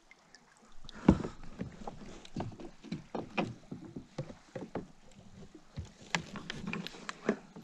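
Irregular clicks, knocks and rustles of a wooden-framed landing net holding a smallmouth bass being brought in and handled against a plastic kayak, with one sharper knock about a second in.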